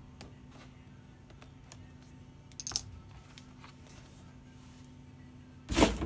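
Handling sounds from a laptop LCD panel being removed: scattered light clicks and taps, a short cluster of clicks a little under three seconds in, then a single louder knock near the end as the removed panel is set down.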